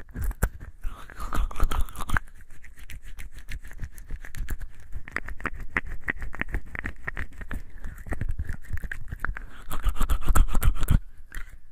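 Wet hands lathering and rubbing with a bar of soap: rapid squelching clicks, with two louder stretches of rubbing about a second in and near the end.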